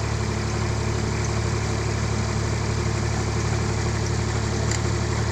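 Kubota DC-35 combine harvester's diesel engine running steadily with a constant low hum.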